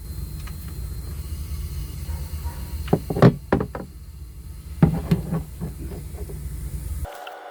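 A few sharp clinks and knocks of hand work on the drain plug and tools under the car: two about three seconds in and a short cluster about five seconds in, over a steady low rumble that cuts off abruptly near the end.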